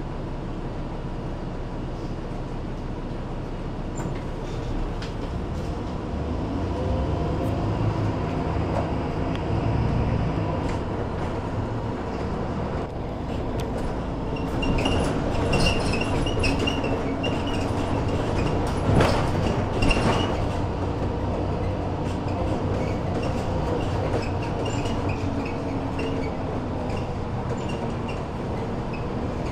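Heard from inside a city bus: engine and running noise as it drives through town, growing louder as it picks up speed in the first several seconds. Short high squeaks and a few knocks or rattles come in around the middle.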